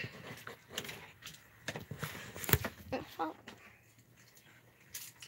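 Scattered knocks, clicks and rubbing from a phone being handled and carried, with two short wavering squeaky cries, one a little under two seconds in and one about three seconds in.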